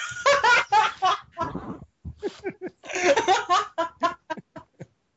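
Men laughing hard in bursts, ending in a run of short ha-ha pulses that trail off near the end.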